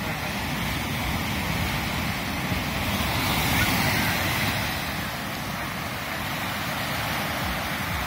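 Baltic Sea surf: small waves breaking and washing up a sandy beach in a steady hiss, swelling slightly a little past the middle, with wind rumbling on the microphone.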